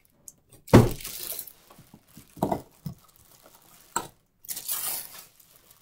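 Plastic bag wrapping on a juicer base crinkling and rustling as it is handled, with a loud thump about a second in and a few lighter knocks later.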